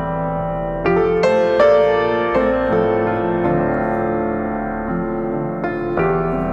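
Background piano music: slow, held chords, with new chords struck about a second in and again near the end.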